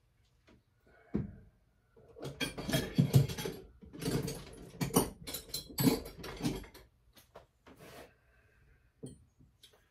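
Small metal parts and hand tools clattering and clinking as they are rummaged through on a workbench, a busy stretch of knocks a couple of seconds in that thins to scattered clicks near the end.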